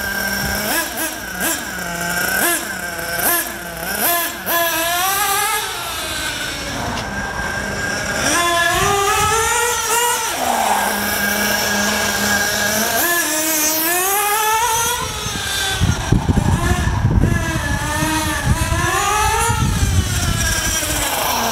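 Small nitro RC buggy engine on high-speed passes: a high-pitched whine that climbs as it accelerates and drops back, over and over, with a rougher low rasp in the last few seconds. At high speed it pings and then dies down, which the tuner reads as the hot engine running lean and starving for fuel.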